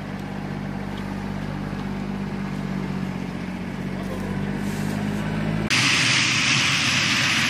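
Drukair ATR 42 turboprop: a steady low engine and propeller drone that grows slowly louder as the aircraft comes in. About five and a half seconds in it cuts suddenly to a loud, even rushing roar of the engines as the plane rolls along the runway.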